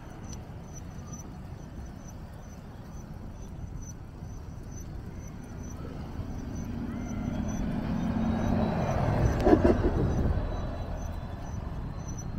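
Road traffic on a city street, with a city bus approaching in the near lane and passing close by: its engine grows louder, is loudest about nine to ten seconds in, then fades as it goes past.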